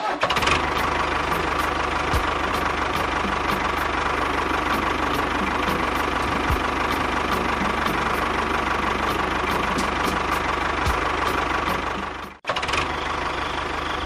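Engine running steadily with a low rumble, cut off abruptly about twelve seconds in and then resuming.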